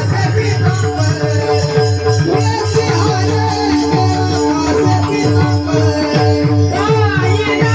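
Devotional varkari kirtan music: a harmonium holds a steady drone under a bending melody line, over regular low drum beats and an even, bright jingling beat from small hand cymbals.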